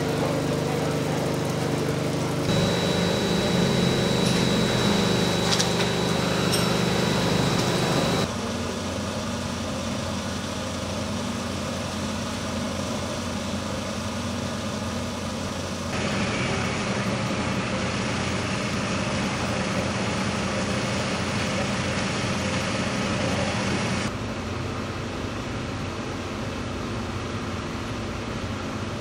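Steady engine-like hum with outdoor background noise, changing abruptly several times as the footage cuts between locations.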